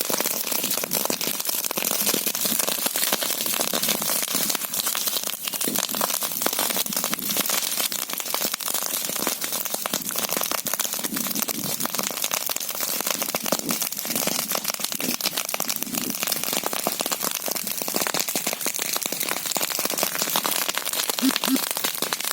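Wood fire burning in a fireplace, with a steady dense crackle of many small pops and snaps over a hiss.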